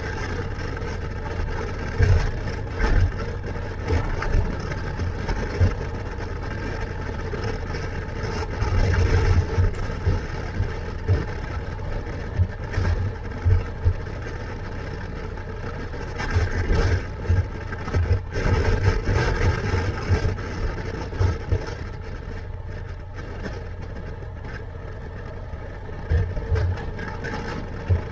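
Motorcycle engine running at a steady cruise, with wind buffeting the helmet-mounted microphone in irregular low gusts.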